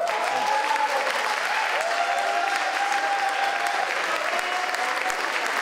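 Audience applauding steadily, with a few drawn-out cheering voices held over the clapping.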